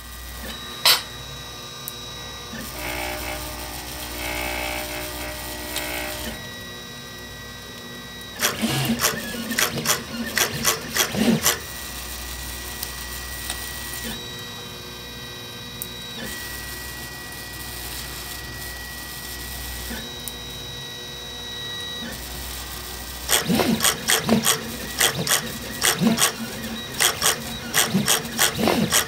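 Velleman K8200 3D printer printing: its stepper motors whine at steady pitches that change as the moves change, over a steady low hum. Twice, about a third of the way in and again near the end, come stretches of rapid, loud clicking bursts from quick short moves of the head and bed.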